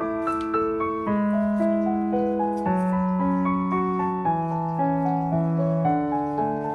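Soft background piano music: slow sustained notes and chords, changing about once a second.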